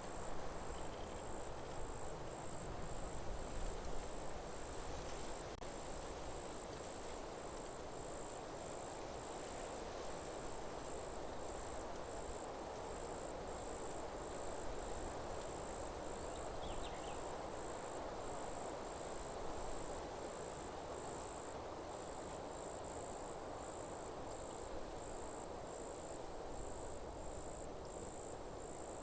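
Forest ambience: an insect chirping in a steady, even rhythm of high-pitched pulses, over a constant low background hiss.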